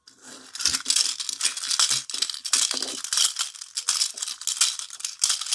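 Hard plastic toy chicken and plastic egg rattling fast and continuously as they are shaken and worked by hand. The rattling starts a moment in.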